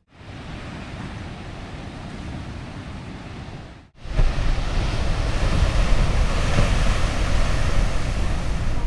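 Wind and ocean surf at sea cliffs: a steady rush of noise. After a cut about four seconds in it gets louder, with heavy wind rumble on the microphone.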